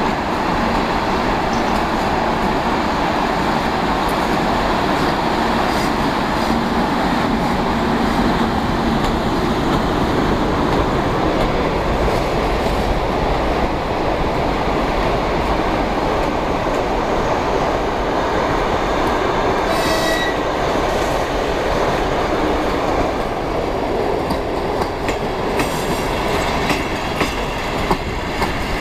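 ChS7 two-section DC electric locomotive passing at speed with a train of mail-baggage cars: a steady loud rumble of wheels on rail and running gear. A brief high squeal comes about two-thirds of the way through, and distinct wheel clicks over the rail joints come near the end as the cars roll by.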